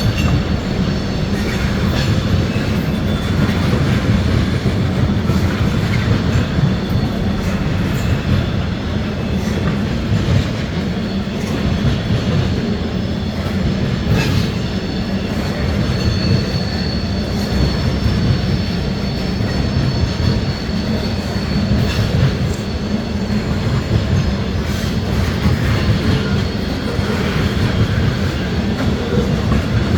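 Freight cars of a long CSX train rolling past: a steady heavy rumble with wheel clicks over the rail joints and a faint high wheel squeal now and then.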